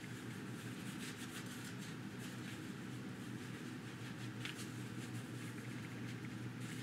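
Paintbrush scrubbing and rubbing paint over a dried, textured modeling-paste surface, a soft irregular scratchy brushing. A low steady hum sits underneath.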